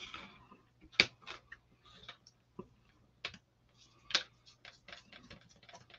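Light clicks and taps of a plastic stir stick against a small dish and ink jars as paint is scooped and stirred together, with a short scrape at the start. Two clicks stand out, about a second in and about four seconds in.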